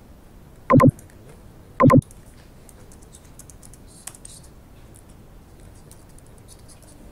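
Computer keyboard typing: light, scattered key clicks as a number is entered. Two loud, short buzzing tones sound about a second apart near the start.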